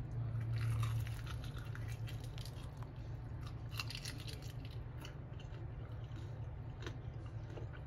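Biting into and chewing a piece of fried chicken leg: faint, scattered crunches from the crust, a semi-crunch, which the cook puts down to olive oil added to the Crisco shortening softening the crust.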